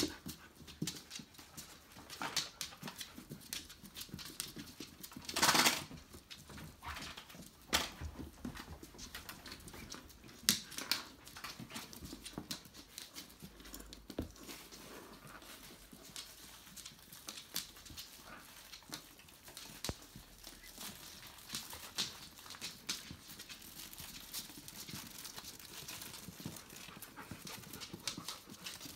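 Five-week-old Tamaskan puppies playing on a wooden floor: claws clicking and scrabbling on the boards in quick, irregular ticks. There is one louder, brief burst of noise about five seconds in.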